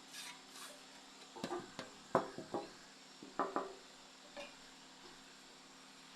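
A ceiling fan's motor hums steadily. Over the hum come a quick series of light metallic clinks and knocks, clustered over about two seconds in the middle, with one fainter click after them.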